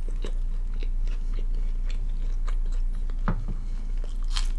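Close-miked chewing and biting of a piece of paneer kathi roll: wet mouth sounds with many small clicks and a sharper click near the end, over a steady low hum.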